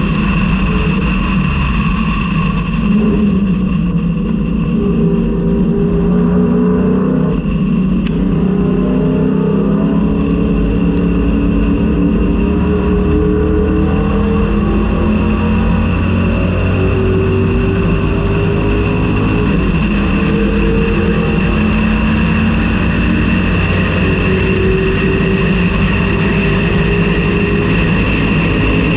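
Ford Mustang race car's engine at racing speed, heard from inside the car: the pitch climbs repeatedly and drops back as it is driven hard through the gears and corners.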